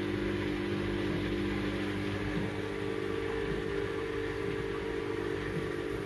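Brandt front-loading washing machine running with towels in the drum, its motor and turning drum giving a steady mechanical hum; a higher hum tone joins about two and a half seconds in.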